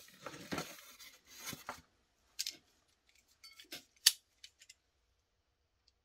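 Empty plastic model-kit sprues rustling and rattling as they are handled and laid down on a cutting mat. A few sharp plastic clicks and taps follow, the loudest a single click about four seconds in.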